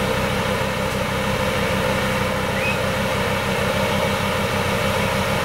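Engine of a modified off-road 4x4 running steadily, its pitch and level holding even throughout.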